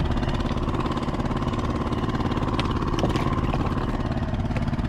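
A steady, low engine drone that holds an even level throughout, with a few faint ticks over it.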